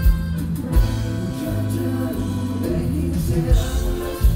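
A grupera band playing live through a PA system: electric bass and a drum beat under accordion and guitar, with a male singer's voice.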